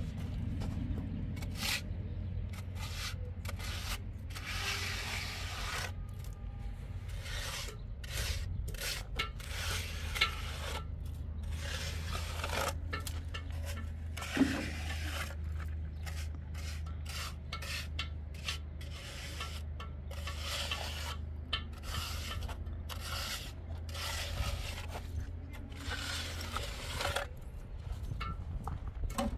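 A steel trowel scraping and spreading cement mortar in many short, irregular strokes, over a steady low hum.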